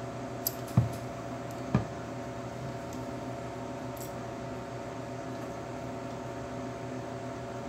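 Steady hum of laboratory equipment, with three light knocks about half a second, one second and nearly two seconds in as a plastic saline wash bottle is handled against test tubes in a rack.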